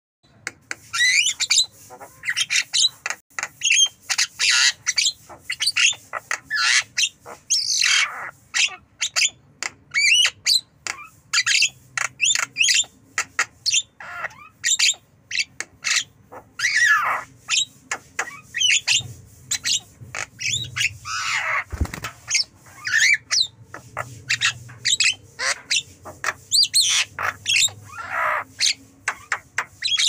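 Javan myna calling nonstop: a fast, unbroken run of harsh squawks, clicks and whistled notes.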